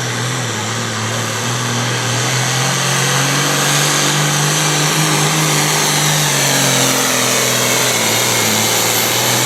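Pro Farm pulling tractor's diesel engine at full throttle under load as it pulls the sled down the track, held steady near its RPM limit with slight rises and dips in pitch.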